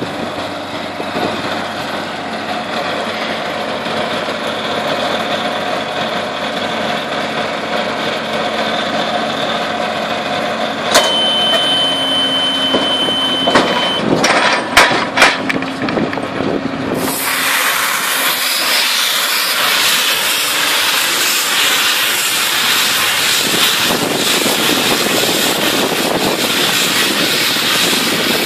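McHale Fusion baler-wrapper running steadily, a drone with a held pitch. About eleven seconds in, a steady high tone sounds for about three seconds, then several sharp knocks follow as the bale is moved. From about seventeen seconds a loud, even hiss takes over.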